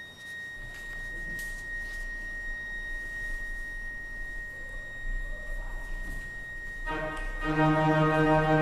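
A single high, steady tone held for several seconds; about seven seconds in, an organ enters with a full chord that swells louder.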